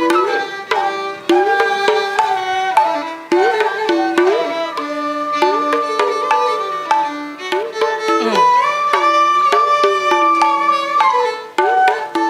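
Carnatic-style instrumental music for a Bharatanatyam dance: a violin melody with sliding ornaments between notes over hand-drum strokes.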